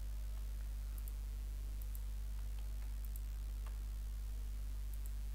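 A handful of faint computer mouse clicks, each a quick double tick, spread about a second apart over a steady low electrical hum.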